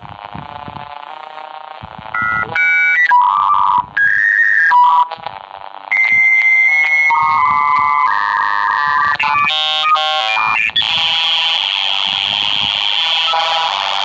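Dial-up modem handshake after dialing: faint tones at first, then loud steady beeps and tones that change pitch every second or so. About three-quarters of the way through it settles into a steady hissing static as the modems negotiate the connection.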